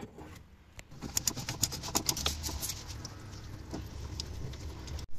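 Socket ratchet wrench clicking in a quick run of clicks for about two seconds as it loosens a fitting on a combi boiler's three-way valve, then a few lighter clicks and tool handling.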